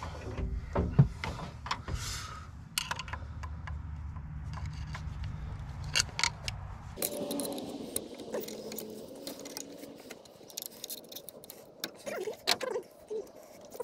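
Small metal clicks and rattles of pliers and a hose clamp being worked around the fuel injector pump and its hoses. A low rumble runs underneath and stops about halfway through.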